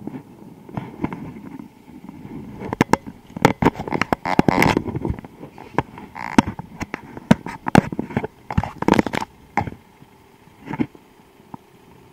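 Bicycle rattling over a bumpy surface: irregular sharp knocks and clatters over a low rumble, thickest in the middle and tailing off near the end.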